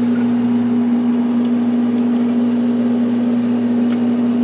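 Steady hum of a VWR under-counter laboratory refrigerator's compressor running, with the thermostat set to maximum cooling.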